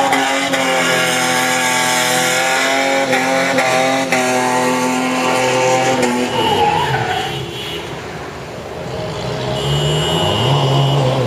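SUV engine held at high revs while the vehicle drifts on a wet road, a steady high engine note for about six seconds. The revs then drop away, and a lower engine note builds up near the end.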